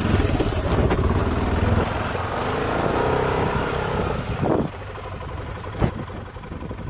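ATV engine running under throttle, then dropping back to a lower, steadier idle about two-thirds of the way through, with a short knock soon after.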